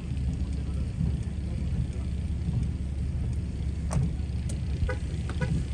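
A car running, heard from inside the cabin as a steady low rumble, with a single click about four seconds in.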